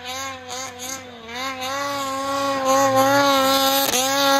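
Turbocharged 850 two-stroke snowmobile engine held at high revs while the sled climbs through deep powder. Its pitch wavers for the first second or so, then holds steady.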